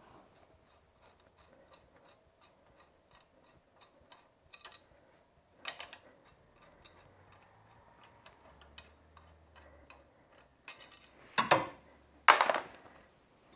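Light metallic ticks and clicks as a loosened crankshaft pulley bolt is turned out by hand. Two louder metallic clanks follow near the end as the bolt and pulley come off the crank nose.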